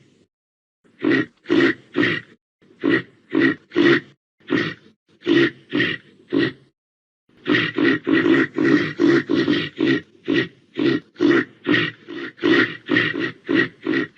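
Reindeer grunting: a long run of short, rough grunts about two a second, broken by brief pauses and coming faster and closer together in the second half.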